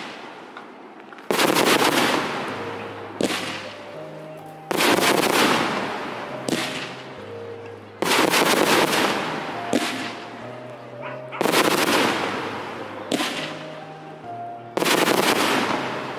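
Aerial firework shells bursting in a steady series: a loud bang about every three and a half seconds, each followed by a weaker bang and a long fading tail. Music with low held notes plays underneath.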